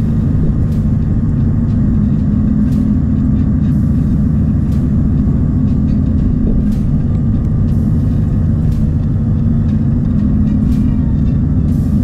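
Blizzard wind buffeting the camera's microphone, a steady, loud, low rumble, with faint scattered ticks over it.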